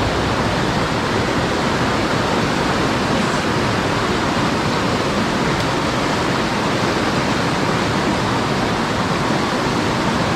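Creek water rushing steadily, a continuous even rush of flowing water with no breaks.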